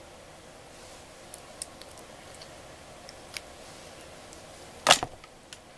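A few faint clicks and ticks from makeup tools and containers being handled, with one sharp, louder click about five seconds in, over a steady hiss.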